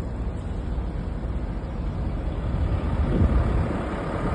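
Steady low rumble of a running vehicle, heard outdoors, with a slight swell about three seconds in.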